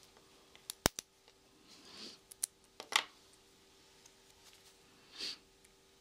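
A few sharp metallic clicks and taps from handling a tiny screw and a small precision screwdriver. The loudest click comes a little under a second in, two more follow around the two- to three-second mark, and a short soft scrape comes near the end.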